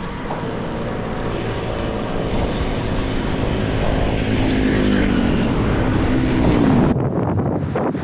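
A motor vehicle's engine passing close by, getting louder and then falling in pitch as it goes past about seven seconds in, over wind rushing on the microphone of a moving bicycle.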